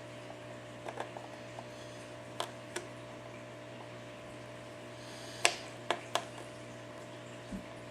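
Scattered sharp clicks and ticks of a flat pry tool working under the cracked glass digitizer of an iPad 4, breaking it loose from its adhesive. There is a steady electrical hum underneath. The loudest click comes about five and a half seconds in, followed by two more.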